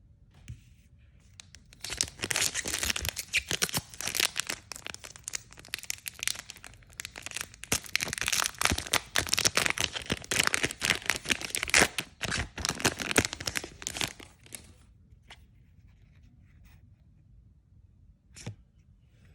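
Yu-Gi-Oh! booster pack wrapper being torn open and crinkled, a dense crackling that lasts about twelve seconds, then a few light clicks.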